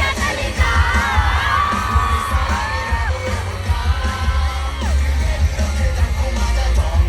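Live hip-hop/pop music played loud over a festival PA, with a heavy pounding bass and sung vocal lines, and a crowd yelling and singing along.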